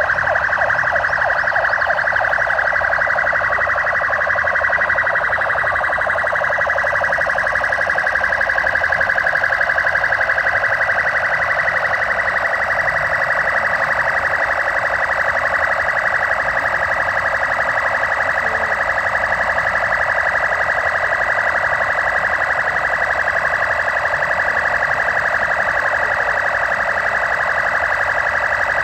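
Several police vehicle sirens sounding together, their wails overlapping in a steady, loud, continuous din.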